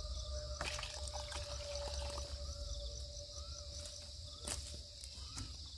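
Steady high-pitched chirring of night insects, with a few sharp clicks over it.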